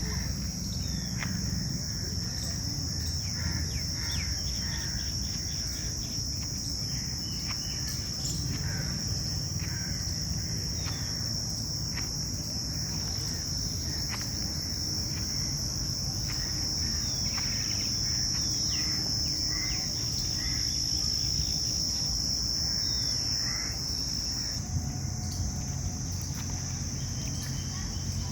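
Forest ambience: a steady, high-pitched insect drone, which shifts slightly about 24 seconds in, with many short bird chirps and calls scattered over it and a low rumble underneath.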